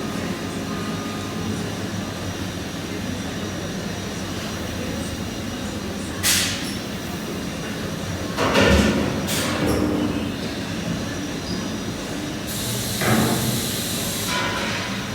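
Steady workshop machinery hum with a few sharp metal clanks after the middle. A burst of hissing, like compressed air, lasts about two seconds near the end.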